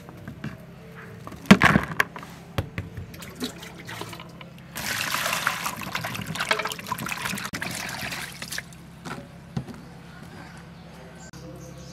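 A hand swishing and rubbing chili peppers and a lime in a plastic bowl of water, splashing for about four seconds in the middle. A sharp knock comes about a second and a half in, and a few light knocks follow near the end.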